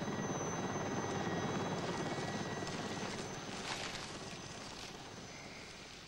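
An engine running with a fast, fluttering pulse, fading steadily over a few seconds.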